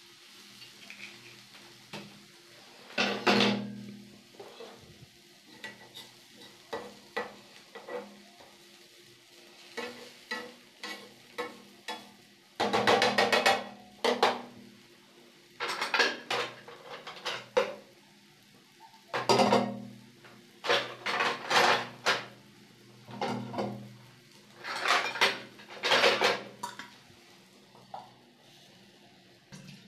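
Metal spatula scraping and clanking against a steel karahi as a scrambled egg and capsicum stir-fry is stirred: a run of separate scrapes and clinks, several of them loud and ringing, each lasting about a second.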